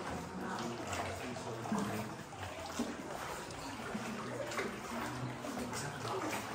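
Water splashing and lapping around a small rowed boat moving through a flooded cave, with irregular paddle splashes that echo off the rock walls.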